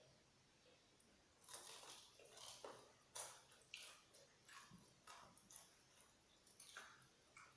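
Faint, irregular crunching and chewing of crispy fried chicken, starting about a second and a half in.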